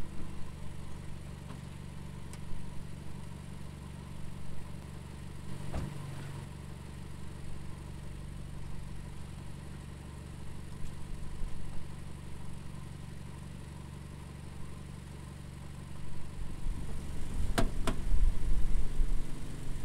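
A steady low engine hum, like a car idling in the lot. Near the end a Honda Civic sedan's door is opened: two sharp latch clicks, then louder thumps and rumbling.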